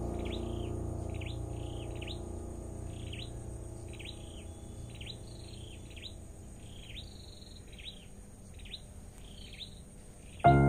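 Short bird chirps repeating about once or twice a second over the fading tail of soft background music; piano notes come in loudly near the end.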